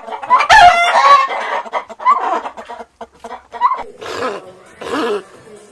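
Chickens clucking and squawking: a loud squawk about half a second in, then a series of shorter clucks.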